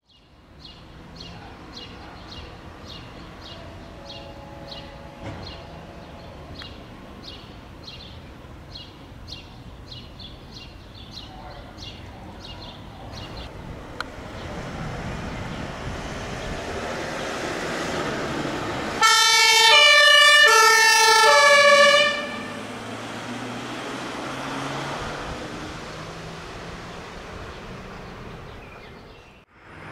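A fire-station alarm gong chimes a few sustained notes over a faint regular ticking, about twice a second. Then an ambulance pulls out and its compressed-air two-tone siren sounds loudly for about three seconds, alternating between two notes, and the vehicle drives off.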